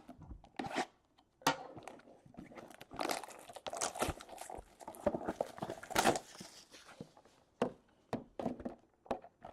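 Plastic shrink-wrap being torn and crinkled off sealed trading-card boxes, in irregular crackling bursts with sharp clicks and taps.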